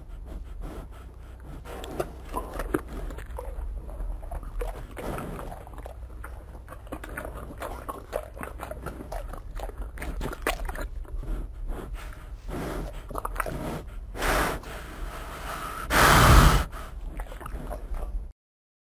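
Bear eating close up: wet chewing, biting and sniffing over a steady low rumble. Near the end come two deep snorts, the second louder and longer.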